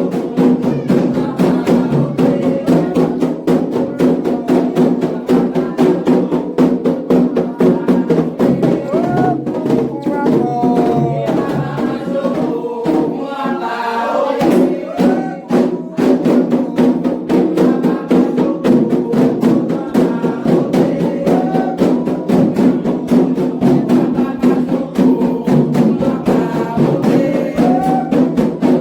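Candomblé xiré music: atabaque drums and a struck bell keep a fast, steady rhythm while voices sing a chant. About twelve seconds in, the drumming briefly thins out and the singing stands out, then the full rhythm returns.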